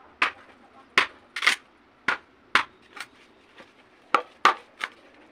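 A blade chopping into a bamboo tube: about ten sharp, irregularly spaced chops, with wood splitting off as chips.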